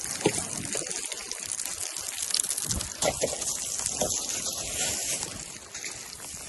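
Snow crunching and scraping, with a few soft low thuds, fading near the end.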